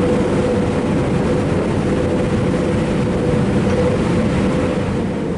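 Car ferry's machinery running steadily alongside the wharf: a low rumble with a constant hum.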